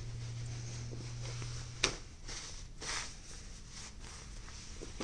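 Swim-short fabric rustling in several short swishes as the garment is handled and stretched. A sharp click comes about two seconds in, where a low steady hum stops.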